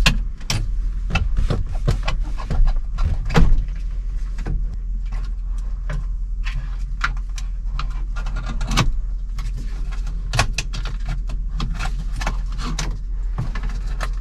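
Scattered clicks and light knocks of hands and tools working loose a car's fuel pump assembly, its electrical connector and fuel hoses, over a steady low hum.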